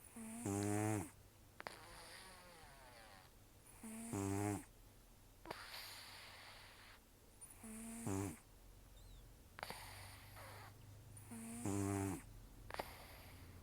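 Elderly cat snoring in its sleep: four loud, rough snores on the in-breath, about one every four seconds, each followed by a breathy exhale.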